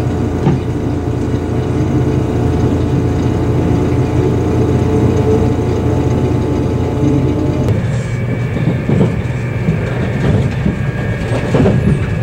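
JR Kyushu 787 series electric train heard from inside the car: a steady low hum with an even electrical whine. About eight seconds in it changes to rougher running noise with clicks and a higher whine.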